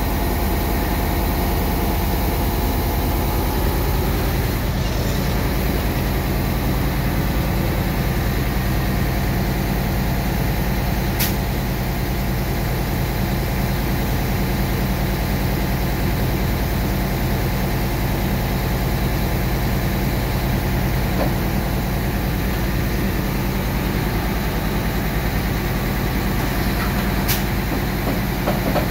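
Wirtgen W1900 cold milling machine's diesel engine running steadily as the discharge conveyor is moved. Two brief sharp clicks, one about eleven seconds in and one near the end.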